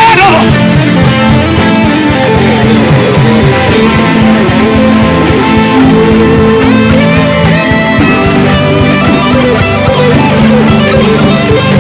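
Instrumental worship music from a band, with guitar prominent over sustained chords and a steady bass line.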